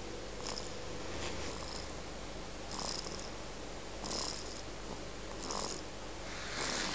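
A sleeping pet snoring, with about six raspy, hissing breaths at an even pace, roughly one every second and a quarter.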